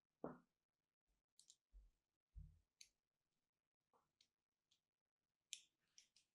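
Faint, crisp scratching clicks as a fine blade scores thin lines into a bar of soap, coming singly and in small clusters, a tight run of them near the end. A few soft low thumps, the loudest just after the start, come from the bar being handled.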